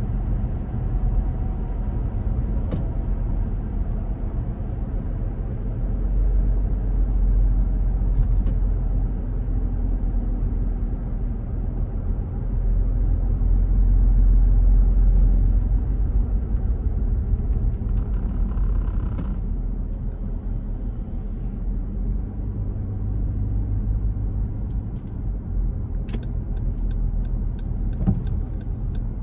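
Road noise inside a moving car's cabin: a steady low rumble of engine and tyres that swells louder twice, with a few faint clicks near the end.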